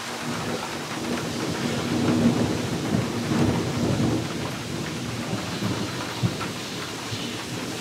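Heavy cloudburst rain falling steadily, with a roll of thunder that swells about two seconds in and dies away over the next few seconds.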